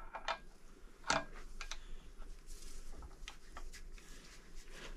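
Scattered, irregular clicks and clinks of a steel wrench being handled and set on the crankshaft hub bolt during the final angle tightening, the sharpest about a second in.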